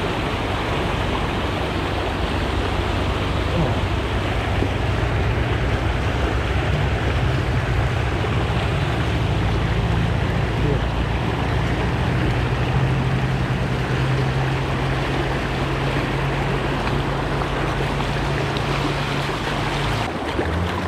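Shallow creek rapids rushing over rocks in a steady, loud rush, with a steady low rumble underneath that stops shortly before the end.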